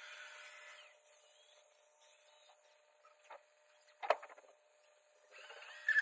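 iRobot Roomba J7+ robot vacuum running with a faint steady mechanical whir that stops about a second in, followed by a few faint clicks and knocks.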